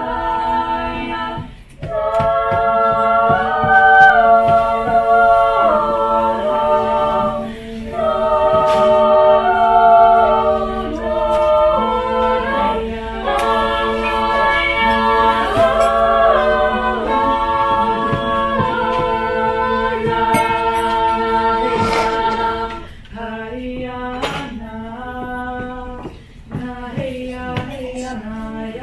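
A small vocal ensemble singing a cappella in close harmony, several voices holding chords over a steady low part. The song ends about 23 seconds in, followed by voices talking and a few clinks of glassware.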